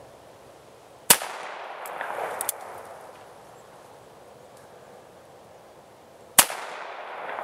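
Two shots from a Ruger New Model Blackhawk single-action revolver in .45 Long Colt, about five seconds apart, each followed by a trailing echo.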